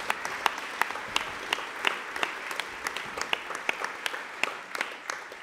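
Audience applause: steady clapping with a few louder single claps standing out.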